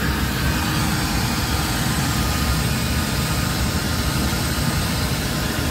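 Electric Makita heat gun running: a steady fan whir with a rush of air and a deep, even rumble.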